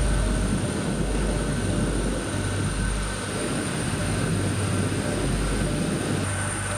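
Steady machinery noise on an aircraft flight line: a constant high thin whine and a low hum under a rough rushing noise that eases about six seconds in.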